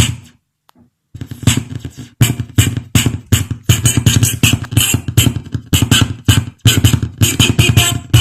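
Beat-heavy music playing from a Xiaomi Redmi Note 3 Pro phone. In the first second there are a few separate hits with gaps between them, then a steady run of percussive beats.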